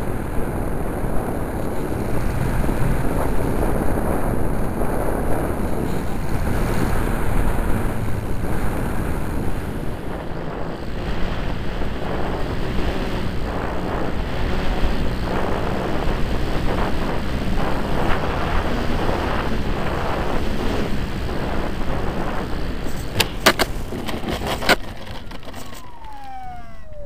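Model Spitfire heard from its onboard camera: a steady rush of airflow and motor noise in flight. A few sharp knocks come about three-quarters through, then the motor winds down with a falling whine as the propeller slows to a stop.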